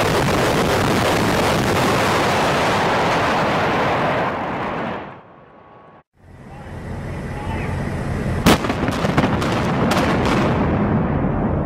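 A high-rise hotel tower collapsing in a controlled implosion: a dense rumbling roar that dies away about five seconds in. After a short break, a new steady background rises and a quick run of sharp cracks from explosive demolition charges follows, the loudest about eight and a half seconds in.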